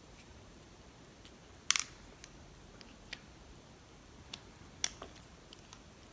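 A few small, sharp clicks and taps of metal lock parts and a small screwdriver being handled while a lock is taken apart and put back together. The sharpest click comes a little under two seconds in, with fainter ones after.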